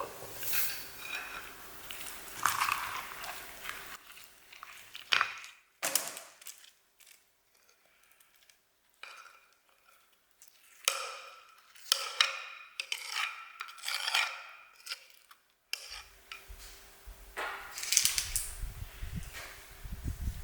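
Kitchen utensils and dishes clinking and scraping in short, irregular bursts during cake baking, with a few nearly quiet seconds about a third of the way in.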